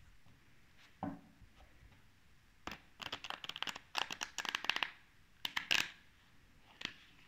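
A deck of oracle cards being shuffled by hand: a soft knock about a second in, then quick runs of card edges clicking against each other from about three seconds to nearly five, with a shorter run near six seconds and a last click near the end.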